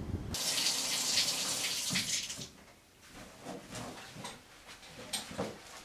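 Shower water running for about two seconds, then shut off abruptly, followed by a few scattered light knocks and rustles.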